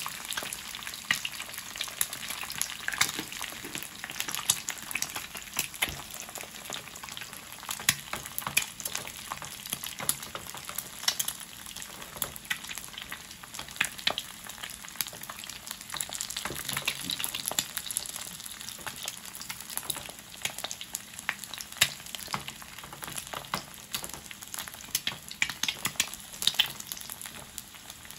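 An egg frying in hot oil in a small frying pan, sizzling with a steady crackle of many small pops.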